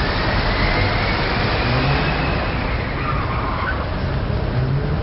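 Steady rushing noise of a car's engine and road, with a faint low hum.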